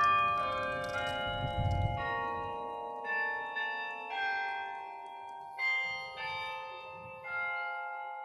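The Berlin Carillon, a tower of hand-played bells, playing a slow tune: a new bell note or chord about every second, each ringing on beneath the next.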